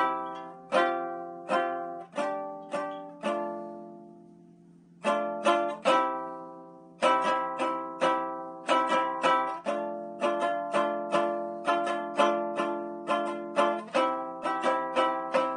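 Handmade walnut Viking-style lyre, tuned A, C, D, E, F, G, being strummed, each chord ringing out and dying away. The strums come slowly at first, stop for about a second, then pick up into a quicker steady run.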